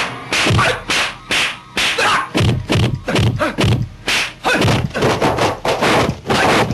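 Dubbed punch and kick impact sound effects of a kung fu film fight: a rapid, irregular string of sharp whacks and thuds, several a second.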